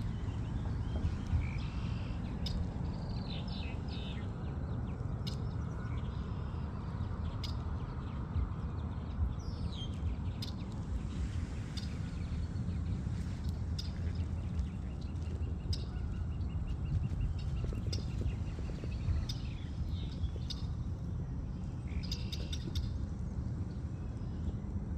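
Birds calling and chirping in short separate calls over a steady low rumble of wind on the microphone, with a fast trill a little past the middle.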